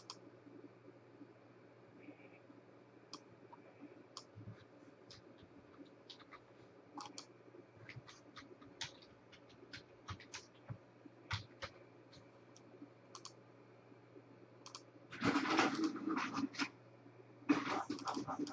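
Scattered clicks of typing on a computer keyboard, one or two a second, over a faint steady hum. Near the end come two louder bursts of dense rustling clatter, each about a second long.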